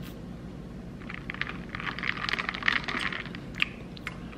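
Quick, dense clinking and rattling in a glass cup of milky coffee as it is stirred with its straw, starting about a second in and stopping near the end, with one sharper clink just before it stops.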